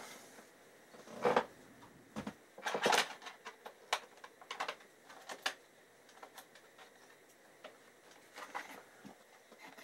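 Scattered light clicks and taps from a plastic DVD case being handled, with a few sharper knocks in the first few seconds and softer ticks after.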